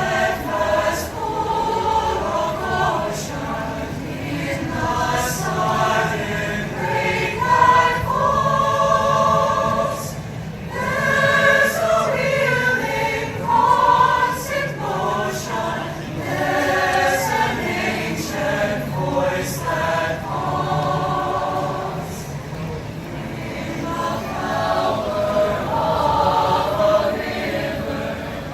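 A choir singing in several voice parts, with long held chords and shifting harmonies.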